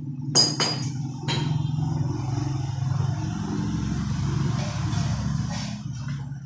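A motor vehicle's engine running steadily, swelling a little over a second in and easing off near the end. Three sharp metallic clinks sound in the first second and a half.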